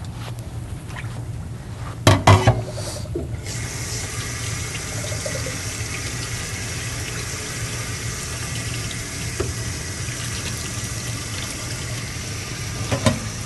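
A kitchen tap running steadily into a sink as canned beans and corn are rinsed under it, the water starting a little after a loud clatter about two seconds in.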